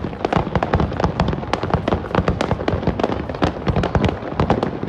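Fireworks display: a dense, unbroken barrage of shell bursts, several bangs every second.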